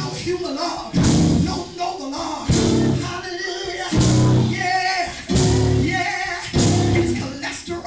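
Loud live church band music, with heavy low notes recurring every second or so and voices singing or shouting over it.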